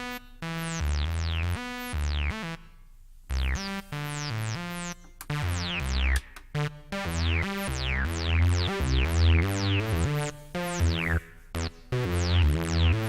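Sledge polyphonic synthesizer playing a randomized patch: a rhythmic sequence of pitched notes over a low bass line. Each note opens bright and quickly sweeps down.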